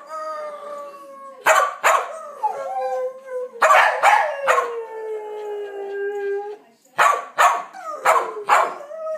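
Blue heeler (Australian cattle dog) howling in long howls that slide down in pitch, broken by sharp barks. The longest howl runs about two seconds in the middle, and a quick run of barks comes near the end.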